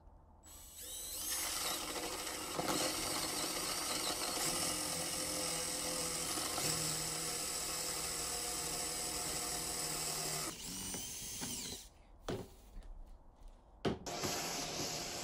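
Cordless drill with a Forstner bit spins up and bores a hole through layered plywood, running steadily under load for about ten seconds before winding down. A few short knocks follow, and near the end a shop vacuum starts with a steady hum.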